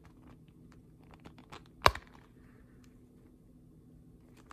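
Fingers handling a small leather wallet with light rustles and soft ticks, then one sharp click a little under two seconds in as the brass snap on its envelope flap pops open.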